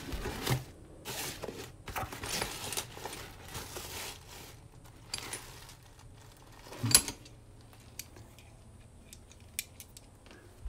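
Rummaging among hand tools: rustling and scraping for the first few seconds, one loud metallic clank about seven seconds in, then scattered faint clicks.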